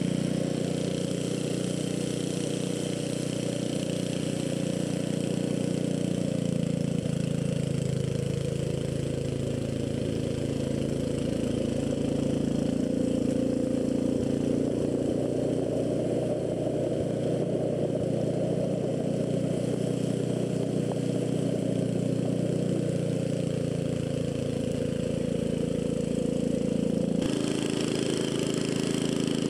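Snowblower engine running steadily as the machine works through deep snow, its pitch wavering in the middle as the load changes. The sound changes abruptly near the end.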